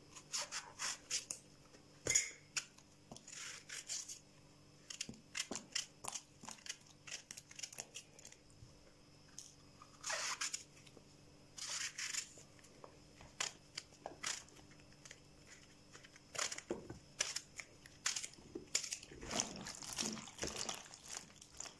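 Knife cutting a peeled eggplant held in the hand into cubes: a long run of short crisp cuts and sharp clicks of the blade, the pieces dropping into a bowl of salted water. Near the end, a hand swishes and presses the cubes down in the water.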